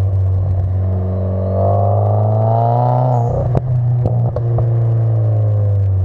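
2016 Subaru WRX's turbocharged flat-four heard through its exhaust while driving: the revs climb, the throttle closes about three seconds in with three sharp pops, and the revs then fall away.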